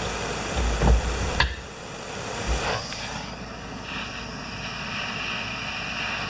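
Torch flame hissing steadily while heating a snowblower cable end to tin it with solder, with a couple of light knocks early on; the hiss changes character about three seconds in.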